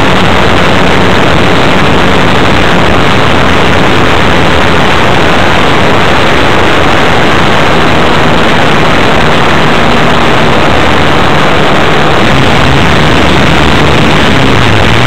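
Small two-stroke model-airplane engine of an AirCore 40 RC plane running close to the microphone, loud and steady at low throttle, its pitch wavering near the end.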